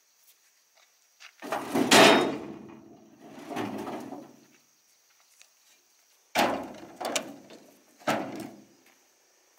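Five heavy thuds a second or so apart, each with a short, low ringing decay; the loudest comes about two seconds in.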